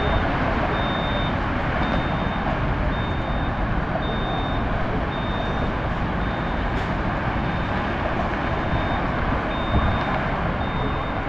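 Steady rumble of bus engines and traffic, with a vehicle's reversing alarm beeping about once a second, each beep short and high-pitched.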